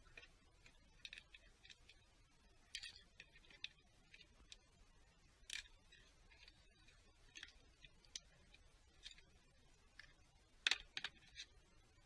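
Faint scattered clicks and light rattles of hands handling parts on top of a diesel engine, with a couple of sharper clicks near the end.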